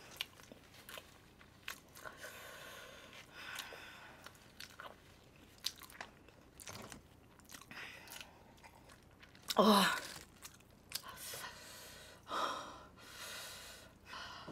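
Close-up chewing of grilled chicken, with soft, wet mouth sounds and small crunches. A short, louder vocal sound comes about ten seconds in, and a few softer ones follow near the end.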